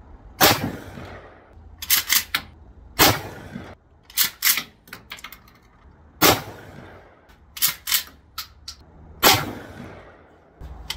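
12-gauge pump-action shotgun firing four shots about three seconds apart, each blast trailing off in a short echo. Between shots the pump is worked with a quick double clack.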